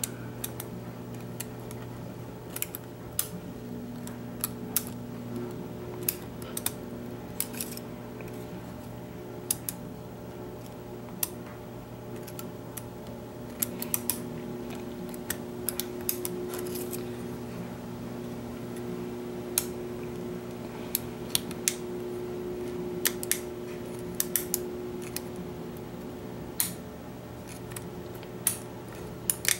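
Lishi HU100 pick working inside a Chevrolet wafer lock: small, sharp metallic clicks at irregular intervals as the pick arm lifts the wafers one at a time under tension. A steady low hum runs underneath.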